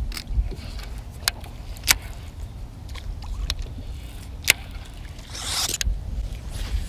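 Low wind rumble on the microphone, broken by scattered sharp clicks, with a brief swish a little over five seconds in.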